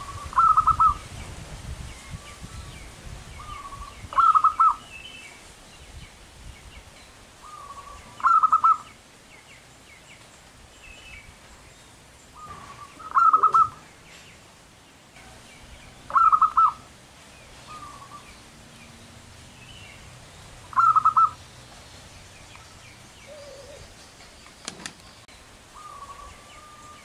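Zebra dove singing: six phrases of rapid, stuttering coos, each led by a softer short note, about every three to five seconds. Fainter chirps of other birds sound between them.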